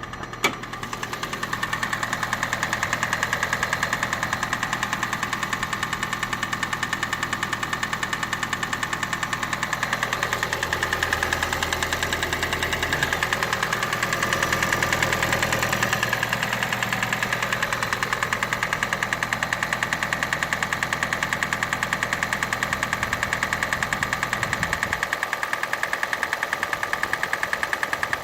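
Toyota Prius (20 series) 1.5-litre four-cylinder petrol engine running with a rapid, regular knock from the top of the engine. It sounds like a connecting-rod knock, but the owner places it at the top end and suspects the camshaft most likely, or else the timing chain or the valve shims. Two sharp clicks come right at the start.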